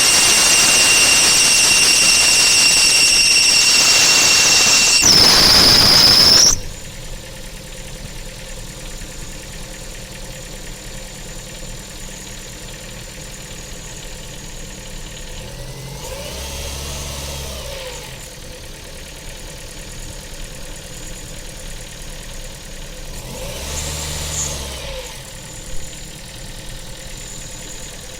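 Ford Focus 3 engine just after a cold start, with a loud, steady, high-pitched squeal from the accessory belt drive. The squeal cuts off abruptly about six seconds in, and the engine settles to idle. It is briefly revved twice, at about a third and about five-sixths of the way through. The squeal comes only on cold starts and returns despite three new belts.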